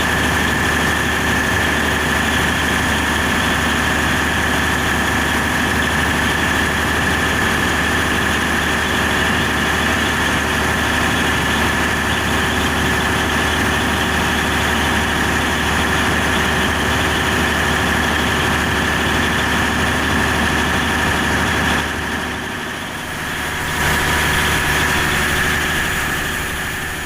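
Perkins 4006 six-cylinder diesel generator set running steadily under load, a constant engine hum with a high, steady whine over it. The sound drops briefly about 22 seconds in, comes back, and fades away at the end.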